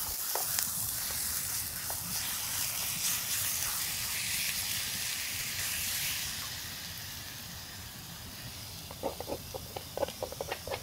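Raw ground beef sizzling in a hot cast iron skillet of oil and chopped peppers, a steady hiss that eases off after about six seconds. A few light knocks and scrapes come near the end.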